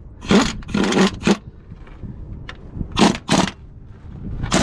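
Pneumatic impact wrench run in several short bursts on a bearing puller's forcing screw: a cluster in the first second or so, then two more about three seconds in. The wrench is taking up tension on the puller against the bearing.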